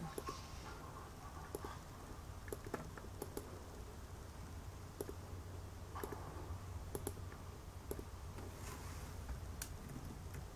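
Scattered, irregular clicks of a computer mouse, with a few laptop keystrokes near the end, over a low steady hum.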